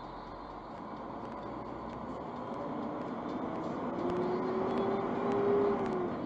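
Semi-truck engine and road noise heard from inside the cab, growing louder. In the second half an engine drone climbs slightly in pitch, then drops away near the end.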